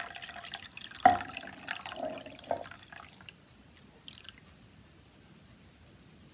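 Lye solution poured from a stainless steel pitcher into melted soap oils in a crock pot, trickling and splashing, with a sharp knock about a second in. The pouring sounds fade out about three seconds in.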